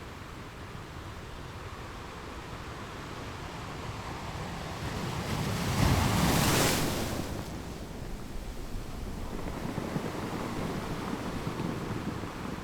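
Sea waves surging on a rocky shore, one wave building to a loud crash a little past the middle and then washing back over the rocks.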